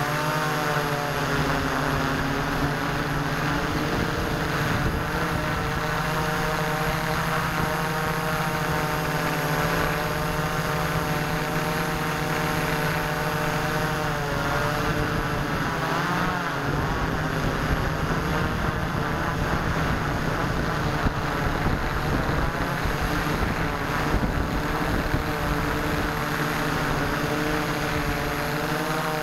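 S650 hexcopter's six electric motors and propellers buzzing steadily in flight, the pitch drifting up and down with the throttle, with a clear dip and rise about halfway.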